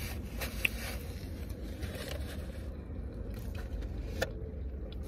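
Low steady rumble inside a car, with a few faint clicks and small handling noises.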